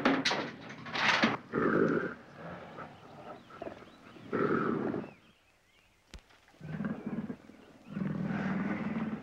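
A large animal calling about five times, each call lasting half a second to a second with short pauses between, and a single sharp click about six seconds in.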